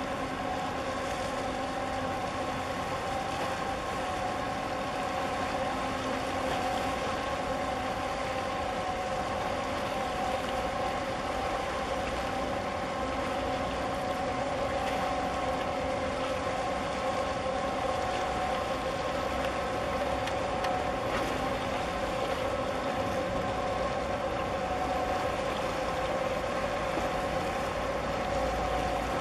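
Steady machinery hum of the container ship COSCO Harmony passing close by, several held tones over an even rushing noise, growing slightly louder as the ship goes past.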